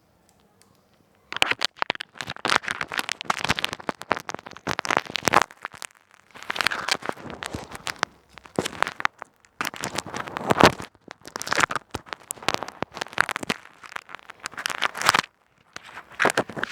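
Plastic bag wrapped over a headset microphone crinkling and crackling close up, in irregular bursts with short pauses between.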